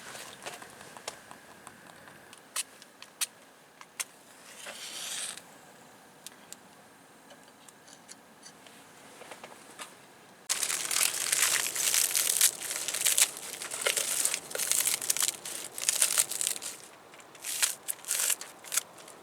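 A few scattered clicks and a short rustle, then from about ten seconds in a long run of loud, irregular crinkling and rustling, as of crinkly packaging being handled and crumpled.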